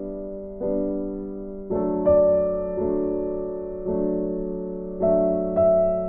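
Background music: soft, slow piano or electric piano playing sustained chords, with a new chord struck about every second.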